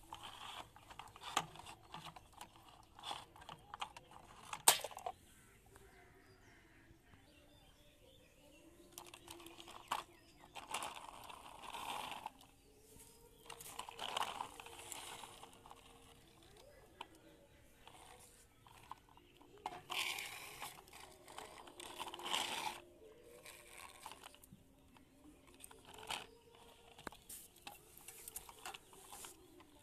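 Plastic toy vehicles handled and pushed along a board: scattered clicks, rattles and scrapes of hard plastic, with one sharp click about four and a half seconds in and a few longer scraping swells later on.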